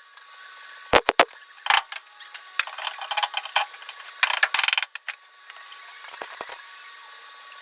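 Welder crackling in short bursts as tack welds are laid on thin car floor-pan steel, with the longest, densest burst about four seconds in.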